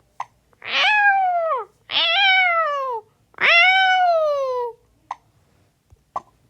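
A cat meowing three times in long, drawn-out calls, each falling in pitch at its end.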